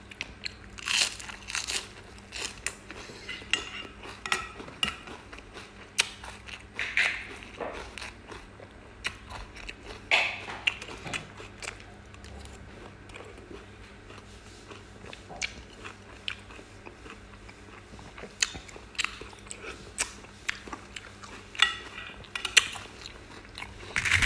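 Close-miked mouth sounds of a person eating lettuce-wrapped raw oysters in fermented fish sauce: crisp crunches of fresh lettuce and chewing, coming as irregular clicks and crunches.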